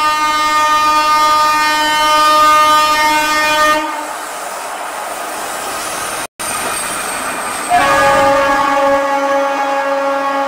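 Electric locomotive's air horn sounding a long steady blast that stops about four seconds in, followed by the rolling rumble of a passing train. The sound drops out for an instant, then a second long horn blast, slightly lower in pitch, starts about three-quarters of the way through and runs on.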